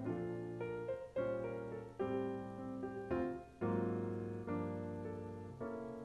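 Background music: a slow solo piano piece, with chords struck about once a second, each left to ring and fade.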